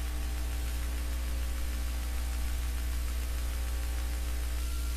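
Steady low electrical hum with a constant static hiss: mains hum and noise in the outdoor live cam's audio feed.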